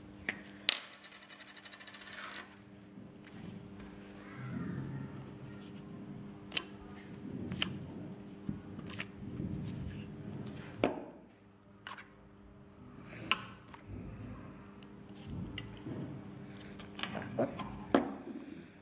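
Small tabletop handling sounds of a glue stick, paper cutouts and clear plastic ornament halves: scattered light clicks and taps, with a quick run of rapid ticks lasting about two seconds, about a second in.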